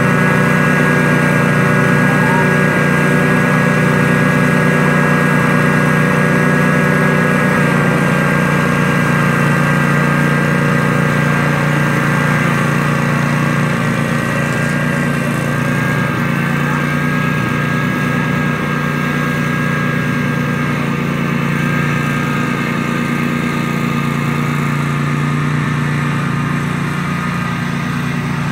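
Cub Cadet riding lawn mower engine running steadily as it mows tall grass, a constant drone that eases slightly about halfway through.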